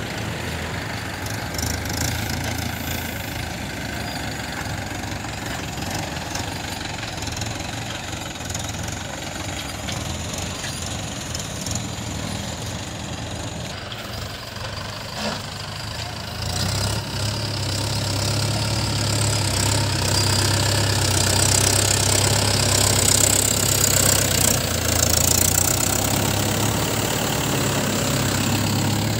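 Mahindra 575 Yuva tractor's diesel engine running steadily while hauling a trolley loaded with mud. The engine gets louder from a little past halfway as the tractor comes close.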